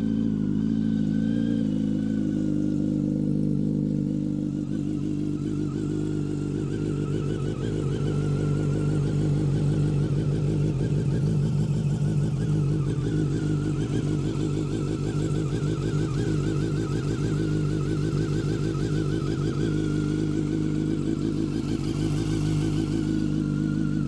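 2006 Yamaha R1's 998 cc inline-four engine idling steadily, cold, just after starting.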